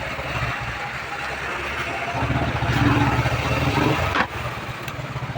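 A motor running with a steady low throb, growing louder about two seconds in, with a sharp click about four seconds in after which it is quieter.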